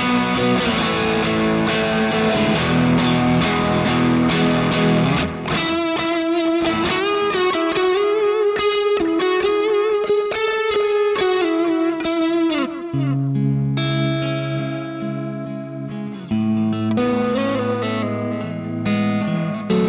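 Electric guitar played through a Line 6 Helix amp modeller: about five seconds of distorted strummed chords, then a single-note lead line with string bends, then lower chords again from about 13 seconds in.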